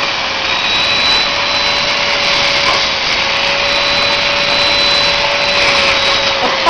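Vacuum cleaner running steadily with a constant whine, sucking the air out of a large plastic bag sealed around a person.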